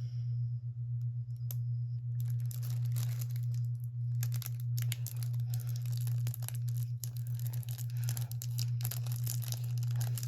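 Packaging of a pack of stickers and die cuts crinkling and tearing as it is worked open by hand, a dense run of crackles starting about two seconds in. A steady low hum runs underneath.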